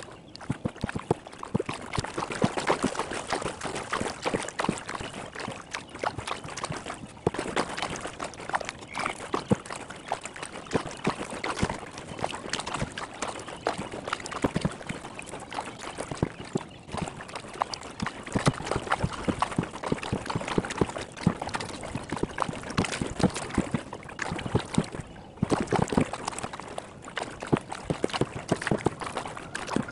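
Kayak paddle dipping and dripping water in quick, continuous splashes and trickles, in sped-up playback.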